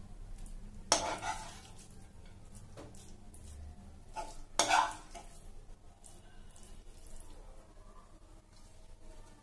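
A metal spoon scrapes cooked paneer bhurji out of a non-stick pan and clinks against a steel serving dish. Two sharp clatters stand out, about a second in and just under five seconds in.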